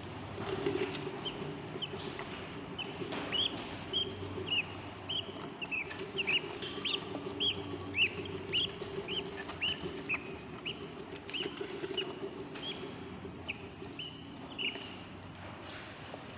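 Budgie chicks chirping in a nest box: many short, high chirps that drop in pitch, a few a second, thickest in the middle, over a low steady hum.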